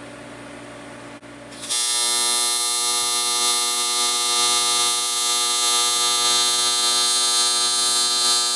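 AC TIG welding arc on aluminium with 4043 filler rod at 140 amps: after a faint click, the arc strikes a little under two seconds in and runs as a steady, loud buzz with a bright hiss.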